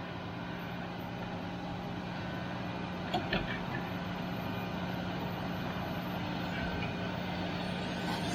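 A vehicle engine running steadily at even speed, with a couple of short knocks about three seconds in.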